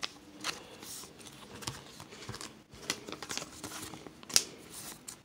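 Thin plastic trading-card sleeves rustling and crinkling as Pokémon cards are handled and slid into them, with scattered light clicks and one sharper tap about four seconds in.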